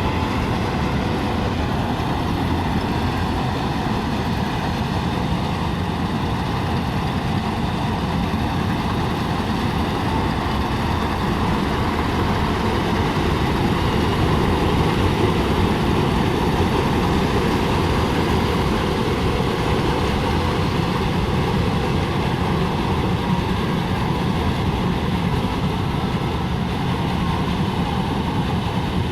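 Malkit 997 combine harvester running steadily while cutting paddy: its engine and machinery make one continuous, even noise with no breaks.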